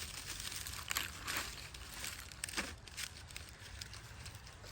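Dry leaves and twigs rustling and crackling with a few sharper snaps as a sulcata tortoise crawls through woodland litter and over sticks.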